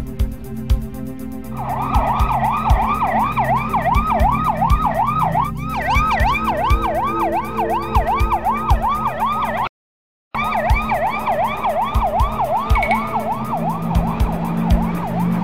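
Police car siren in a fast up-and-down yelp, about three sweeps a second, starting about a second and a half in and cutting out briefly near the middle, over background music with a low beat.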